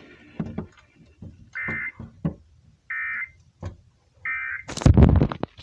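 Three short bursts of Emergency Alert System end-of-message data tone, a harsh warbling digital squawk, about a second and a half apart, signalling that the tornado warning broadcast is over. Scattered clicks fall between the bursts, and a loud burst of crackle comes just before the end.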